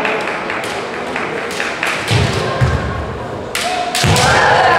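Kendo bout: bamboo swords (shinai) clacking in a run of quick taps, heavy thuds of stamping feet on the wooden gym floor about two seconds in, then a sharp strike and a loud, held kiai shout near the end.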